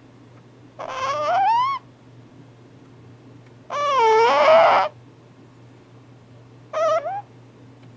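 A sleeping cat snoring: three whistle-like, squeaky snores that glide up and down in pitch, the middle one the longest and loudest, the last one short.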